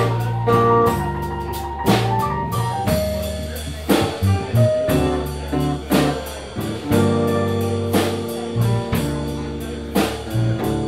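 Live blues band playing an instrumental passage: drum kit keeping a steady beat with a strong hit about every two seconds, walking bass guitar, and guitar and piano chords and fills.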